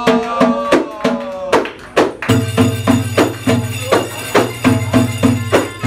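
Egyptian folk music: hand frame drums and tambourines beaten in a steady rhythm of about three strokes a second. A steady low droning instrument joins about two seconds in.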